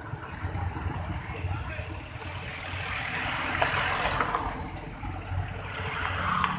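Road traffic going by: a steady low engine rumble, with a vehicle passing about three to four seconds in and another near the end.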